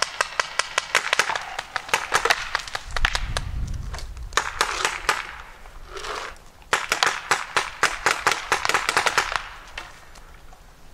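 Paintball markers firing in rapid volleys of sharp pops, about five or six a second, in bursts with short pauses between them. A brief low rumble comes about three seconds in.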